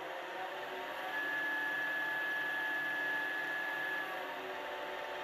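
Wood lathe running steadily with a pen blank spinning on its mandrel. A steady high whine joins in about a second in and stops about four seconds in.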